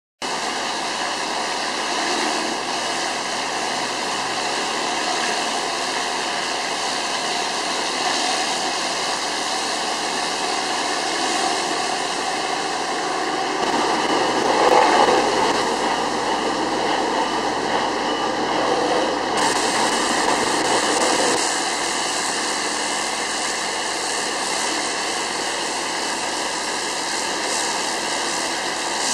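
High-pressure roof-cleaning rig running: a steady rush of pump and motor noise mixed with the hiss of water jets. It swells for several seconds from about halfway through.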